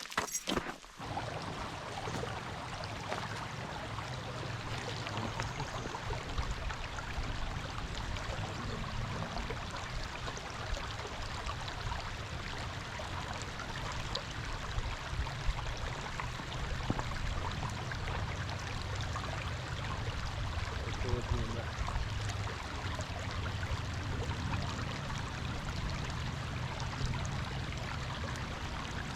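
A small stream running: a steady, even rush of water.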